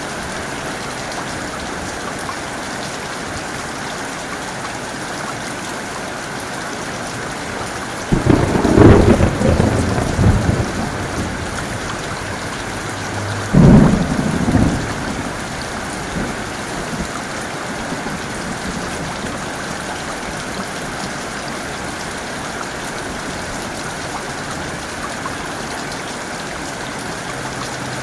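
Heavy rain pouring steadily. Two claps of thunder break in: a longer rumbling one about a third of the way in, and a sharper, shorter one about halfway.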